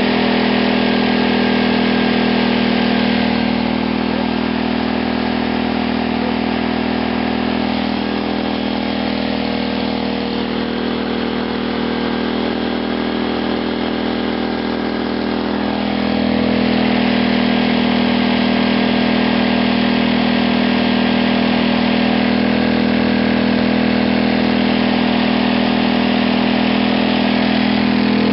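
Small engine running on fuel passed through a GEET reactor, a steady engine note that eases down a little about three and a half seconds in and picks back up around sixteen seconds.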